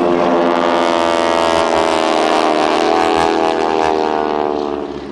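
Piston engine and propeller of an aerobatic display plane passing overhead: a loud, many-layered drone whose pitch slowly falls as it goes by, fading near the end.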